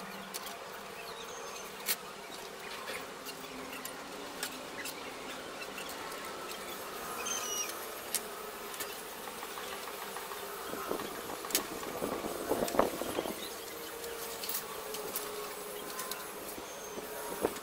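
Scattered clicks and knocks of plastic antenna brackets and metal parts being handled and set down on a wooden table, with a cluster of knocks about two thirds of the way in, over a steady background hum.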